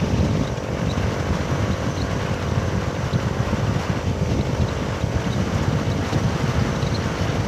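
Motorcycle engine running steadily while riding, under wind rushing over the microphone.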